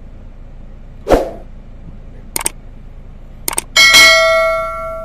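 Subscribe-button animation sound effect: a whoosh about a second in, a pair of mouse clicks, then another pair, then a bell ding that rings out and fades near the end.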